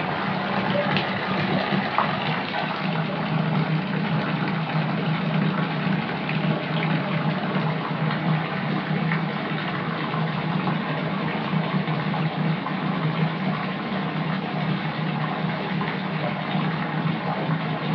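Water pouring steadily from a tap into a filling bathtub.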